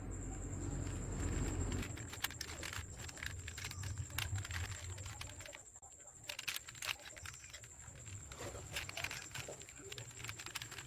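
Plastic clicks and clacks of a 5x5x5 Rubik's cube (Professor's Cube) being turned quickly by hand, coming in irregular runs of rapid clicks.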